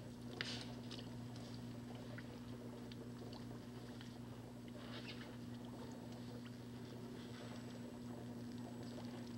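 Quiet room tone: a steady low electrical hum, with faint rustling and a few light ticks.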